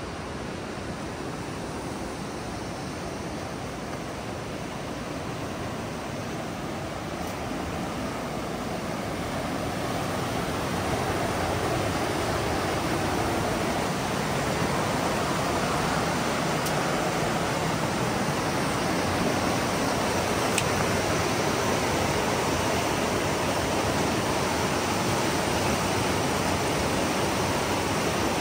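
Rushing water of the Green River over rapids, a steady dense rush. It grows louder around ten seconds in.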